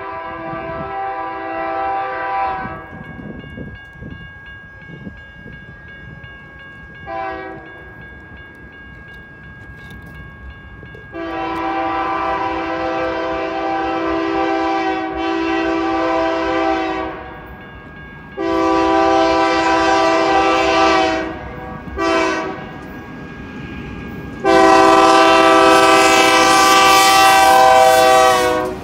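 Horn of a BNSF GE C44-9W diesel locomotive sounding repeatedly as it approaches a grade crossing: a long blast, a short toot, then the crossing signal of two long blasts, a short one and a final long blast, the last the loudest as the locomotive reaches the crossing. Crossing-signal bells ring steadily beneath it, and the locomotive's rumble rises near the end.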